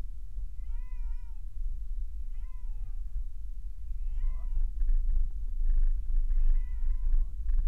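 Steady low road and engine rumble inside a moving car, with four short high cries over it, each wavering up and then down in pitch, spaced a second or two apart.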